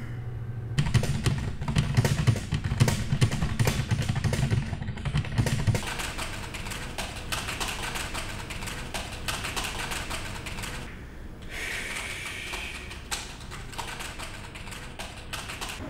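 Rapid typing on a computer keyboard, a quick patter of key clicks, with a low hum under the first several seconds.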